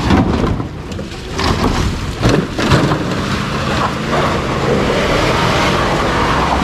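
Chevrolet Silverado pickup driving off-road through a dirt ditch and over a rutted track: the engine runs under load and the tyres work over the dirt. A few knocks from the body and suspension come in the first three seconds, and the run settles into a steady sound after that.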